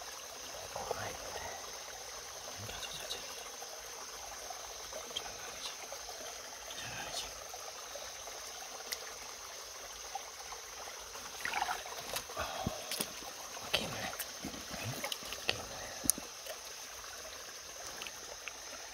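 Shallow stream water trickling, with a steady high-pitched drone over it. In the second half come a string of sharp clicks and knocks.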